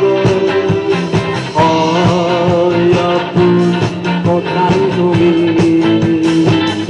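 A live band playing a rock song, with a steady drum beat under a long-held lead melody line.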